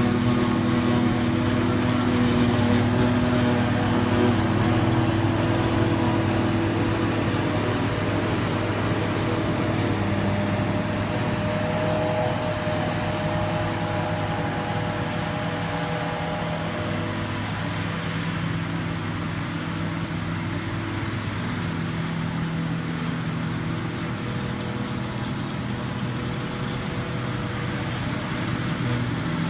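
CLAAS Jaguar self-propelled forage harvester running under load, its engine and chopping and blowing gear making a continuous sound with several steady tones as it chops grass and blows it from the spout. It gets somewhat quieter about halfway through.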